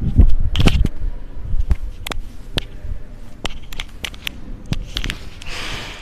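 A string of sharp clicks and knocks, the loudest in the first second, then a short rustling scrape near the end.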